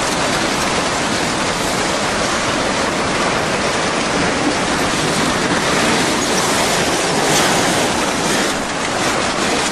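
Tsunami floodwater rushing, loud and steady.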